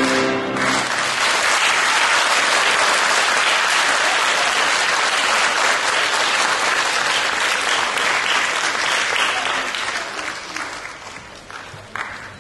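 Concert audience applauding. The last notes of a tar and piano ring out during the first second, then the clapping runs steadily and fades out over the last couple of seconds, leaving a few scattered claps.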